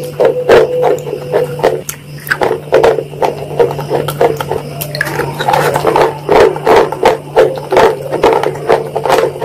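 Close-miked chewing of chocolate: crisp mouth crunches and clicks, about two or three a second, over a steady low hum.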